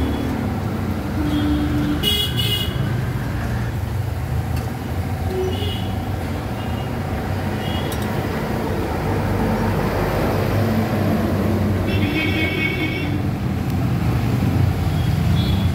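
Street traffic rumbling steadily, with vehicle horns honking several times. The longest honk comes about twelve seconds in.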